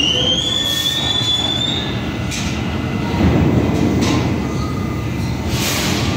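R179 subway train pulling away over the switches from the local to the express track, its wheels squealing in a pitch that rises over the first two seconds above a steady rumble of the cars, with a few short bursts of noise later on.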